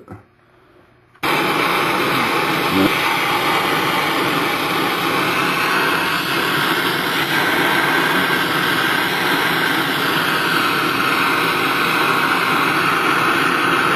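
A machine running with a loud, steady, even noise that starts abruptly about a second in and goes on without a break.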